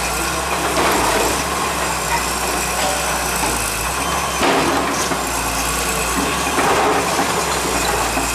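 An engine running steadily at idle under constant background noise, with a few brief louder swells.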